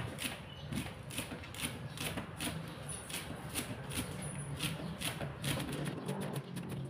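Cleaver chopping green onions on a thick round wooden chopping board: a steady run of knocks, about two or three a second.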